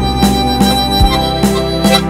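Harmonica playing a hymn melody in held notes over a backing accompaniment with a steady beat, about two or three strokes a second.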